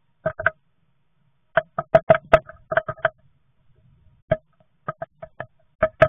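Blue tit pecking and tapping inside a wooden nest box: quick, irregular taps in bursts, each ringing briefly at the same pitch, with short pauses between the bursts.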